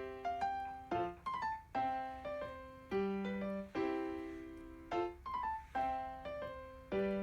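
Background piano music: a gentle phrase of struck notes, each fading after it is played, repeating every couple of seconds.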